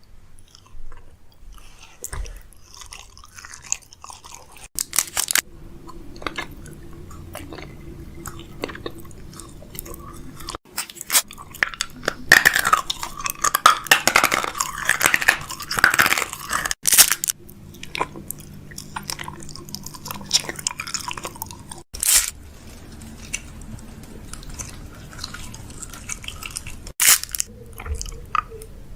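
Groceries being unpacked and arranged in a fridge: crinkling packaging, with sharp clicks and knocks of plastic containers and bottles being handled and set down. The crinkling is densest in the middle, and the sound breaks off abruptly several times as one clip cuts to the next.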